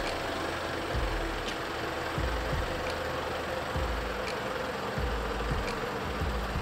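Mercedes-Benz Unimog truck's diesel engine running at low revs as the truck crawls on a very steep slope: a low rumble that swells and drops about once a second, under a steady hum.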